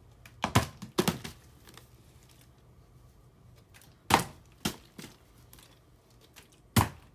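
Plastic water bottle being flipped and landing with sharp knocks: two about half a second apart near the start, two more about four seconds in, and one near the end.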